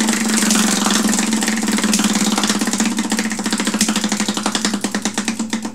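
Prize wheel spinning, its pointer clicking against the pegs around the rim. The clicks come so fast at first that they blur into a steady buzz, then spread out and slow as the wheel loses speed.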